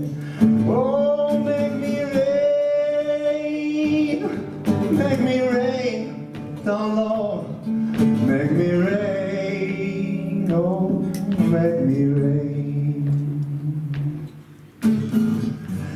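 A male voice sings long held notes with vibrato over an acoustic guitar, live. Near the end the sound drops away briefly before the guitar comes back in strongly.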